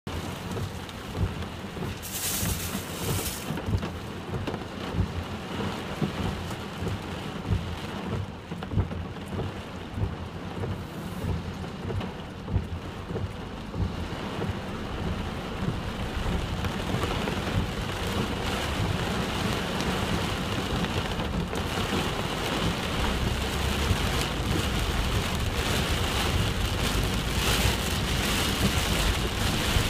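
Heavy typhoon rain pouring steadily, with irregular low rumbles of wind gusting against the microphone. The rain grows louder over the second half.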